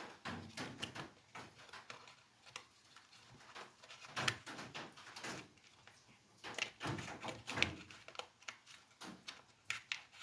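Irregular light clicks, taps and short scrapes of hand tools and small metal and plastic chainsaw parts being handled, while the ignition coil is adjusted against the flywheel to set its gap.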